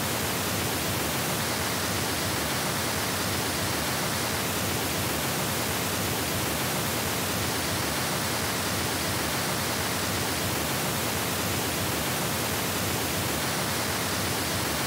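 Steady pink noise, high-passed above 80 Hz. It plays first as the plain test signal, then partway through with the Revel F35 floor-standing speaker's measured on-axis response applied, so it carries that speaker's tonal colouring: a dip around 2 to 3 kHz and a peak near 5 kHz.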